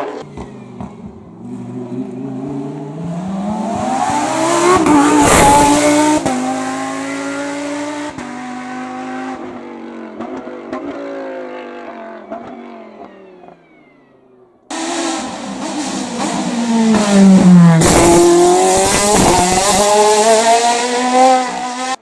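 Hillclimb race cars passing one at a time at full throttle. The first engine note rises as the car approaches, peaks as it passes about five seconds in, then drops and fades with gear changes. A second car breaks in suddenly a little past the middle and passes about three seconds later.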